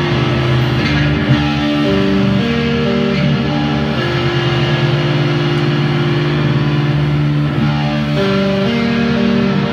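Black metal band playing live: distorted electric guitars and bass hold loud, sustained chords that change every second or two over a dense wall of sound.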